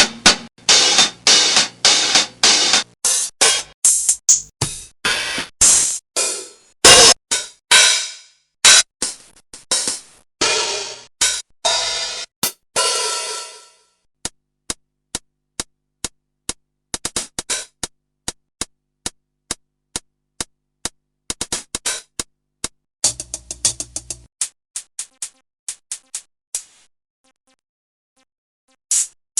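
A run of separate cymbal hits, one after another. The first half are ringing crashes and splashes that each decay over up to a second. After that come mostly short, clipped ticks like closed hi-hat strokes, with a brief low thud among them, a pause of a couple of seconds, and a few more hits near the end.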